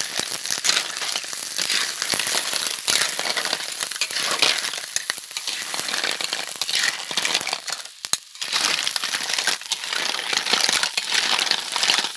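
Red silk clams clattering against each other and the metal wok as a spatula and chopsticks toss them, with frying sizzle underneath. There is a brief lull about two-thirds of the way through.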